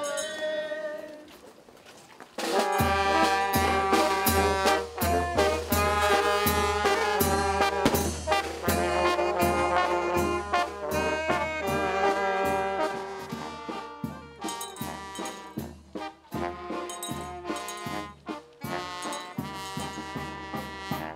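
Village brass band of sousaphone, trumpets, saxophones and trombone playing a lively tune over steady, repeating bass notes, with sharp hits keeping the beat. The band comes in loud about two and a half seconds in.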